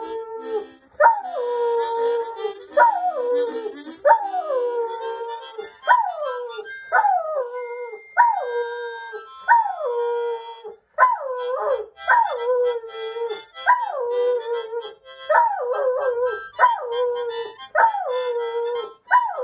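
Australian Shepherd howling: a long run of howls, one every second or so, each sliding down in pitch and settling on a held lower note.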